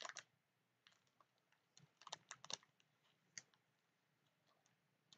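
Near silence with a few faint clicks: a small cluster about two seconds in and a single click a second later.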